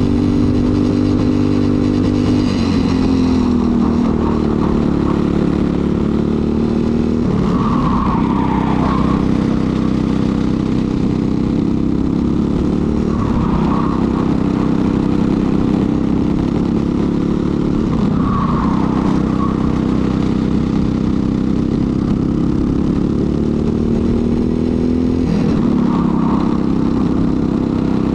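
Briggs & Stratton LO206 single-cylinder four-stroke kart engine at racing speed. Its revs climb steadily, then drop sharply about every five seconds as the kart lifts and brakes for corners, and pick up again on the way out.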